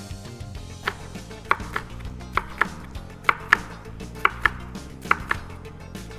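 Chef's knife dicing red kapya peppers on a wooden cutting board: sharp knocks of the blade on the board, mostly in quick pairs, about one pair a second.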